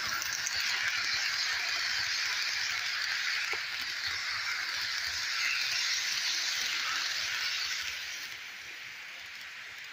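HO scale freight cars rolling past on curved track: a steady high-pitched hiss and rattle of small metal wheels on the rails, dropping away about eight seconds in as the end of the train passes.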